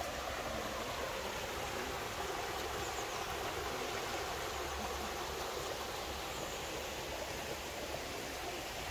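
Small stream running over rocks: a steady rush of water.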